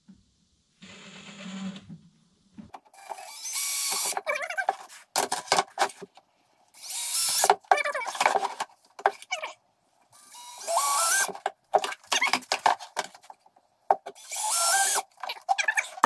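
Cordless DeWalt drill boring bolt holes through a plastic fan shroud. A short quieter whir comes about a second in, then four short loud runs, each rising in pitch as the motor speeds up, with clicks and knocks of handling between them.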